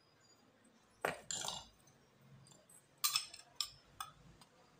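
Hard plastic and metal parts of an LED bulb's housing being handled and pulled apart. A scraping rustle comes about a second in, then three sharp clicks come over the last couple of seconds.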